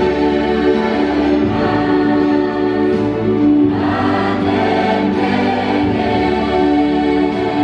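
Women's choir singing together in long held notes, the chord shifting every couple of seconds.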